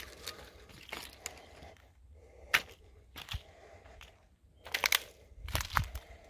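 Footsteps crunching on gravel and loose stones, irregular steps with a sharper crack about two and a half seconds in and a quick cluster of steps near the end.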